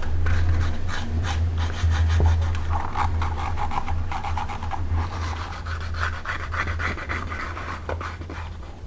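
Rapid, repeated rubbing and scraping strokes from hand work on leather, over a steady low hum.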